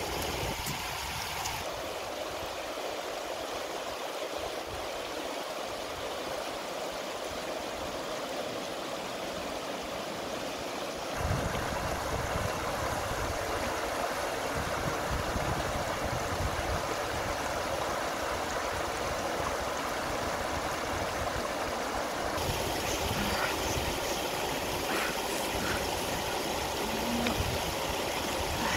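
Shallow river rushing over rocks and small rapids: a steady hiss of running water whose tone changes abruptly a few times.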